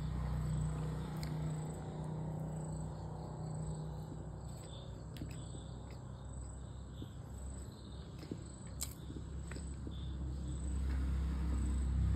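Close-miked chewing of a soft chocolate cupcake: a steady low mushy chewing sound with occasional small sharp mouth clicks.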